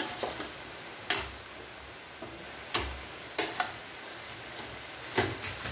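Metal spoon clinking against the side of a metal cooking pot while stirring cooked chicken: several sharp taps at uneven intervals.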